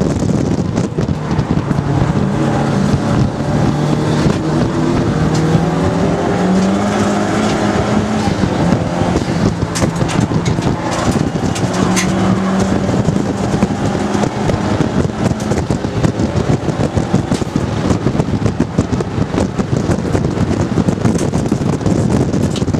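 Turbocharged Nissan S13 race car's engine running hard under load, heard inside the cabin: the engine note climbs in steps over the first half, then is mostly buried in wind and road noise.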